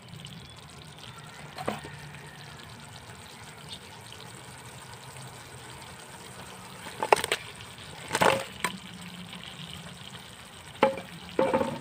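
Fried chicken wings being tipped into a pan of simmered sauce and stirred: soft wet stirring over the simmer, broken by a handful of sharp knocks, the loudest about seven and eight seconds in.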